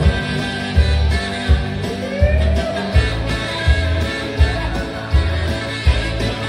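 A song with guitar and a steady kick-drum beat about every 0.7 s, and a melodic line that slides upward about two seconds in.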